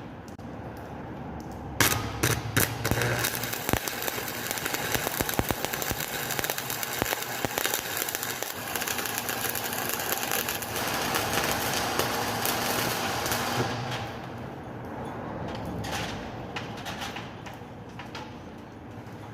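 Stick (shielded metal arc) welding with a 6013 electrode on pipe. The arc strikes suddenly about two seconds in and crackles and sputters steadily for about twelve seconds, then dies away to a few scattered crackles.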